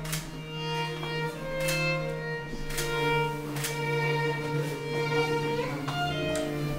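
Music led by violin and bowed strings: sustained notes over a held low bass note, with regular note attacks.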